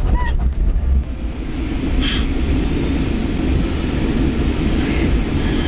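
Steady low rumble and rush of air as an engineless SZD-50 Puchacz two-seat glider accelerates and climbs on a winch launch. A few short high squeaks come through about two seconds in and near the end.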